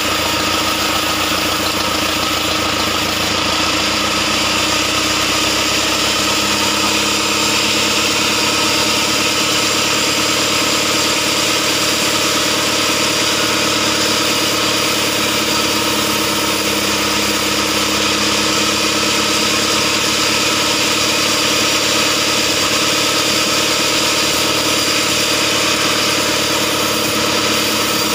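Engine-driven band sawmill running steadily while its blade cuts lengthwise through a heavy log: the even engine note under a continuous high hiss of the saw in the wood.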